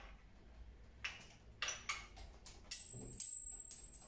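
Metal fittings of a C-stand clicking and knocking as they are handled and fitted at the top of its steel riser, a series of separate clicks with the loudest knock about three seconds in. A thin high ringing tone sounds through the last second or so.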